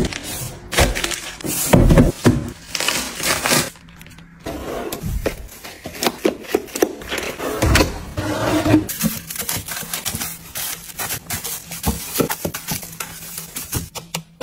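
Close-up handling sounds: crinkling and rustling of plastic packs of trash bags, then a pull-out kitchen waste-bin drawer sliding open with a knock about eight seconds in, among many small taps and clacks of items being moved.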